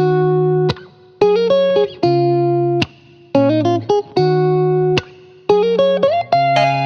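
Background music: a plucked guitar melody played in short phrases with brief pauses between them.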